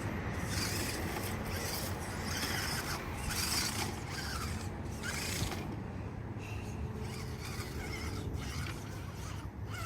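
Stock Axial SCX10 Honcho RC rock crawler's electric motor and geared drivetrain running at low crawling speed, a steady low mechanical hum with uneven scuffing noise as it works over rocks.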